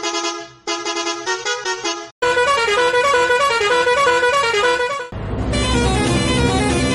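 Bus horn sample played as a tune, note by note, in edited variations that switch abruptly about two seconds in and again about five seconds in; the last variation has a heavy bass underneath.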